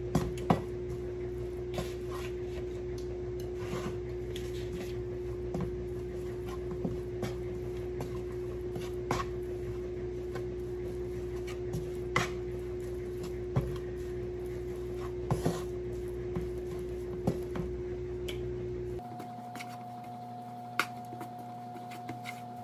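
Wooden spatula scraping and knocking against a nonstick frying pan in scattered short clicks while stirring chopped bacon, over a steady background hum that shifts pitch near the end.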